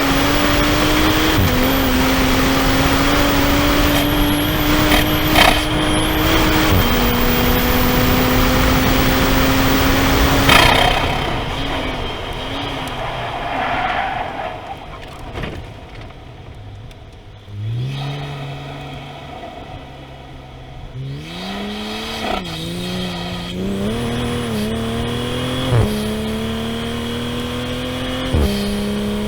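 Toyota GR Supra (A90) engine heard from inside the cabin, pulling hard with its pitch climbing and dropping at each upshift, then lifting off about ten seconds in. It falls to a low, quieter running note, and from about twenty seconds in it picks up again through several quick upshifts at lighter load.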